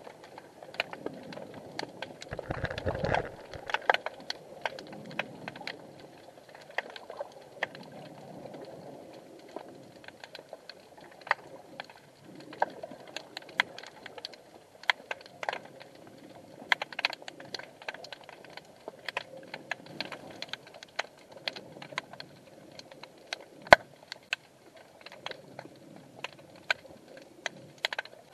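Irregular sharp underwater clicks and ticks, a few a second, over a faint low wash of water, heard through an action camera's waterproof housing. A short low rumble comes about three seconds in.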